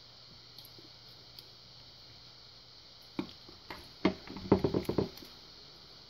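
Metal clicks and knocks from a small tool prying at the retaining C-clip on the back of a lock cylinder. A couple of sharp clicks come about three seconds in, then a quick flurry of louder clicks and knocks for about a second.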